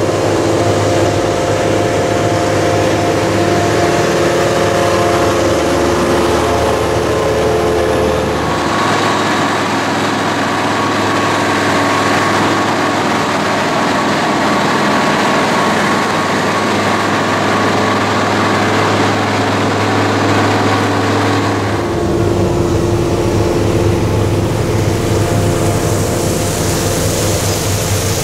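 Heavy diesel road-paving machinery running steadily: an asphalt roller and an asphalt paver at work. The engine note changes abruptly about nine seconds and again about twenty-two seconds in.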